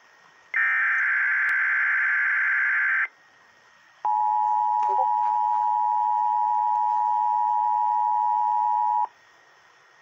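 NOAA Weather Radio Required Weekly Test heard through a weather radio's speaker. The last burst of the coded SAME header data, a harsh warbling screech, lasts about two and a half seconds. After a second's pause a steady alert tone holds for about five seconds and cuts off suddenly.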